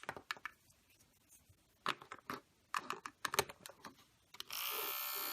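Small plastic clicks and snaps as LEGO pieces and a flexible wire are fitted together. About four and a half seconds in, an ungeared LEGO 9-volt electric motor starts running with a steady, high electric whine.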